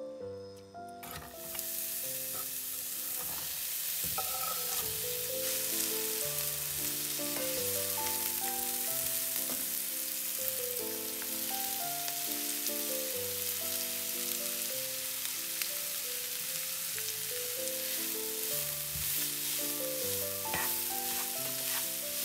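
Chopped onion and grated carrot frying in oil in a hot non-stick pan: a steady sizzle that starts about a second in, with the vegetables stirred by a spatula. Soft background music plays underneath.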